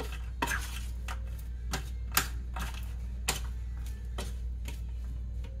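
Pecan halves clicking and tapping against a metal pie pan as a hand spreads them out: irregular sharp clicks, roughly half a second to a second apart, over a steady low hum.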